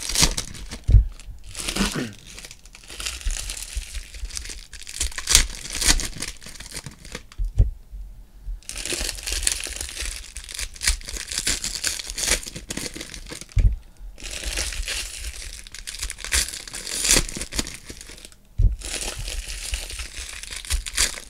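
Foil wrappers of Panini Prizm basketball card packs being torn open and crumpled by hand: bursts of crinkling and tearing with short lulls between them and a few soft thuds.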